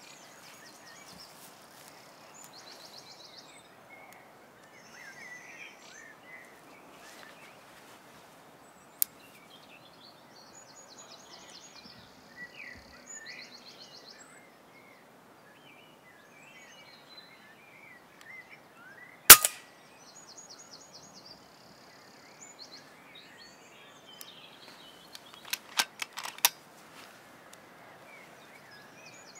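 A single shot from an FX Impact MkII PCP air rifle about two-thirds of the way through, the loudest sound, over a background of birds chirping and trilling. A single sharp click comes about nine seconds in, and a quick cluster of sharp clicks comes near the end.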